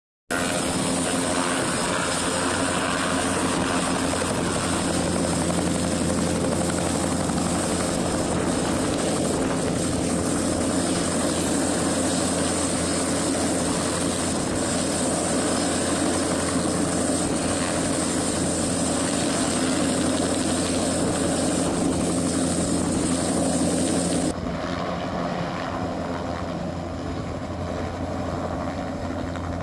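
Agusta-Bell AB-206 helicopters running close by, with steady turbine and rotor noise as they lift into a low hover. About 24 seconds in, the sound drops abruptly to a quieter hovering helicopter.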